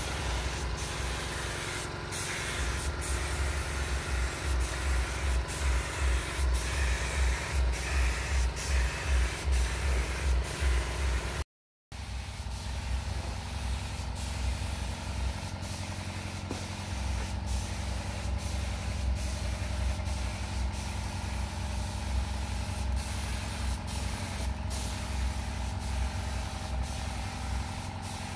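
A small electric piston air compressor runs with a low, pulsing throb and steady hum. Over it, compressed air hisses from a hand-held air-gun nozzle aimed at a carved wooden statue, with many brief breaks as the trigger is let off.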